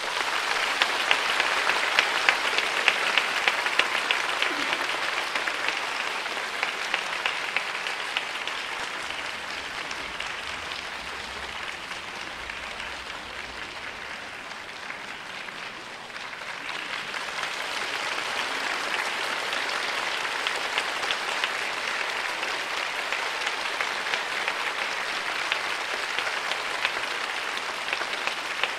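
Audience applauding as the orchestral music ends. The applause is loudest at first, eases off toward the middle, and swells again a little past halfway.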